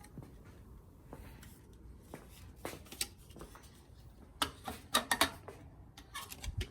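Scattered light clicks and knocks against a quiet background, most of them bunched about four to five seconds in and again near the end.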